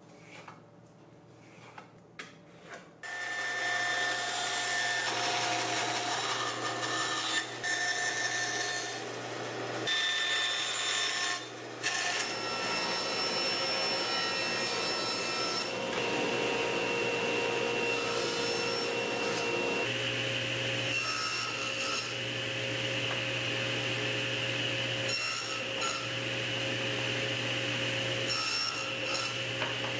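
Faint pencil scratching, then, about three seconds in, a table saw running and cutting walnut boards over a steady hum from its dust collection. The sound changes abruptly several times.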